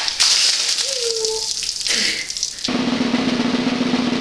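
A bucket of ice water poured over a person's head, splashing down hard, with a short cry about a second in. A bit under three seconds in the splash gives way to a steady drum roll.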